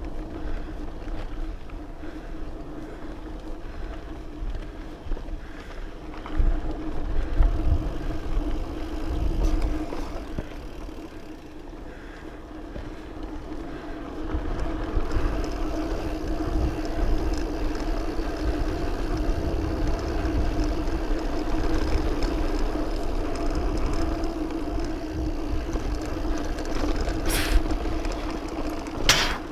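Specialized Camber Comp 650b mountain bike rolling over a rough dirt singletrack, heard from the bike: tyre and trail rumble with a steady hum under it and bumps about a quarter of the way in. Two sharp clicks near the end.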